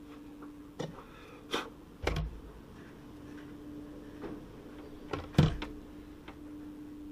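A few knocks and clunks as shell-core mould parts are handled and set down on a workbench, the sharpest about five seconds in, over a steady low hum.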